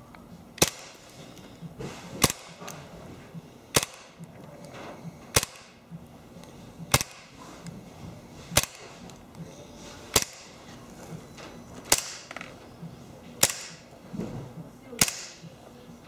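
WELL G194 CO2 gas-blowback Colt 1911 BB pistol firing single shots, ten sharp cracks spaced about a second and a half apart, each shot cycling the metal slide with a hard kick.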